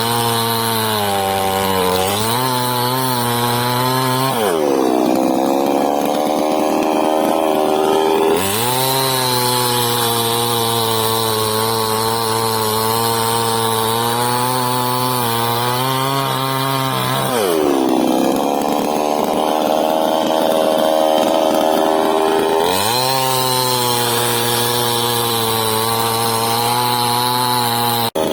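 KROFF petrol chainsaw running at high revs and cutting wood: its pitch sinks and holds lower as the chain bites in, twice for several seconds, then climbs back as it comes free.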